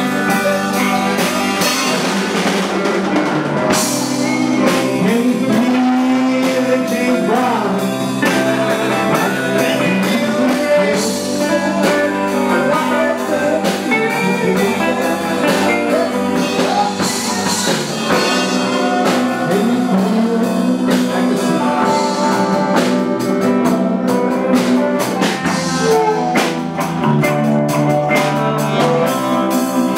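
Live blues band playing, with saxophone, guitar and drum kit.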